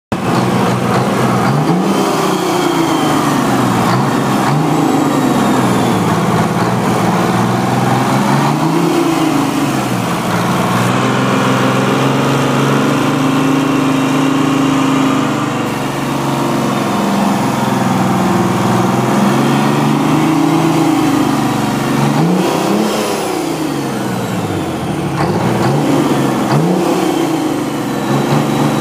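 Turbocharged Detroit Diesel two-stroke diesel engine revved up and down over and over, held at high speed for a few seconds in the middle.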